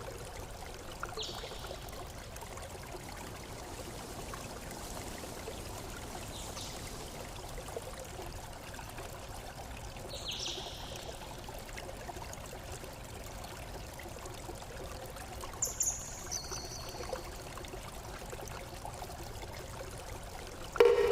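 Steady rush of running or trickling water, with a few short high chirps about a second in, about ten seconds in and near sixteen seconds.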